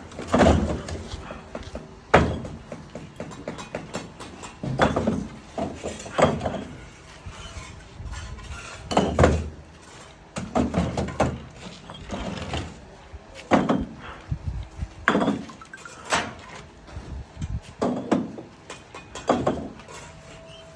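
Bricks being thrown and caught or set down: about a dozen hard thuds and clacks at uneven intervals, one every second or two.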